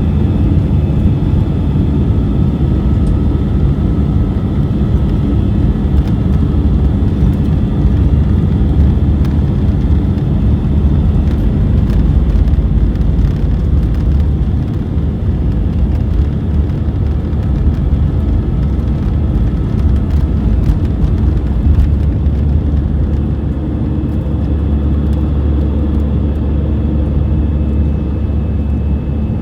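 Airliner cabin noise during takeoff: the engines and rushing air make a loud, steady rumble, with faint high engine tones that fade over the first several seconds.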